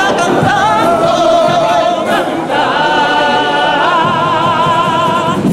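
A Cádiz carnival comparsa, a male street choir, singing together in harmony. From about halfway through they hold long chords with a wavering vibrato.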